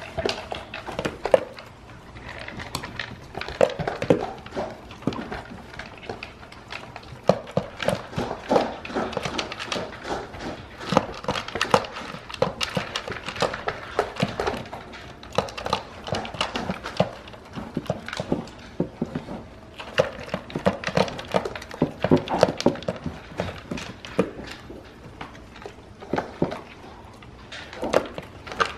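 Dog eating out of a plastic slow-feeder bowl: a dense, irregular run of clicks and rattles as it licks and noses the food out of the bowl's ridges, the bowl knocking against the floor now and then.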